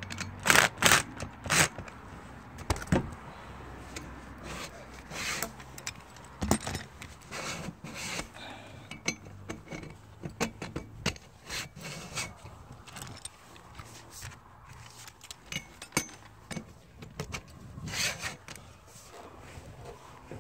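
Irregular clanks, knocks and scraping as the metal parts of a satellite dish roof mount and a cordless drill are handled on asphalt shingles. The loudest knocks come in a quick cluster about a second in.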